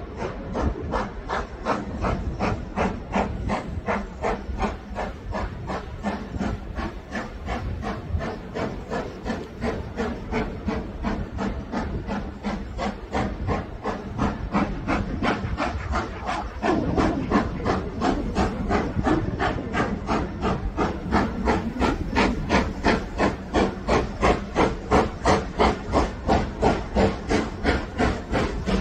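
Ivatt Class 2MT 2-6-2 tank locomotive No 41241 working a train, its steam exhaust beating in a steady, even rhythm of about two to three chuffs a second. The beats grow louder from a little past halfway as the engine draws nearer.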